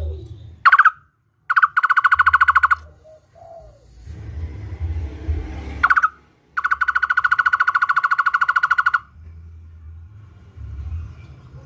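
Barbet (takur) singing: a short rising note, then a rapid, even trill of repeated notes, twice. The second trill is longer, about two and a half seconds.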